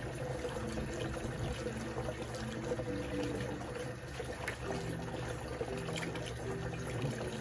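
Water churning and gurgling steadily inside a clear plastic drink-dispenser fountain, stirred into a vortex by a submersible pump with gas bubbling up through it.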